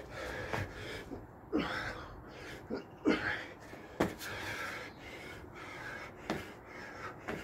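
A man breathing hard and panting from exertion during burpees. A few sharp knocks sound as the movement lands.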